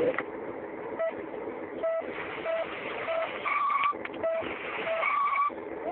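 Vehicle noise: a steady rushing, broken by short beeps and, about three and a half and five seconds in, two longer higher tones.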